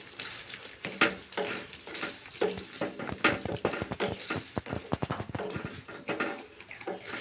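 Wooden spatula stirring mushrooms, onion and capsicum through a thick tomato gravy in a nonstick kadai: irregular scrapes and knocks against the pan, the first sharp one about a second in, over a faint sizzle of the gravy.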